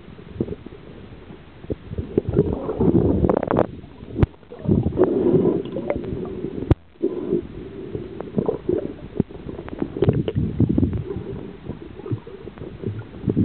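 Muffled water sloshing and gurgling, swelling and fading irregularly, with scattered knocks and clicks.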